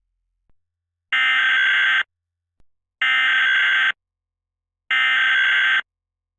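Emergency Alert System SAME header: three identical bursts of digital data tones, each just under a second long, with about a second of silence between them. This is the coded header that opens an EAS alert.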